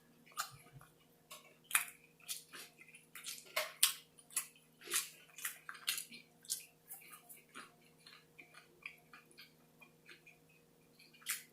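A person chewing a mouthful of burger close to the microphone: quick wet mouth smacks and clicks, busy for the first several seconds and thinning out toward the end.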